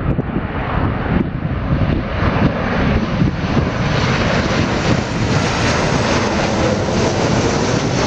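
Boeing 737 airliner on landing approach passing low overhead, its jet engine noise swelling and growing brighter as it comes over. Gusty wind buffets the microphone underneath.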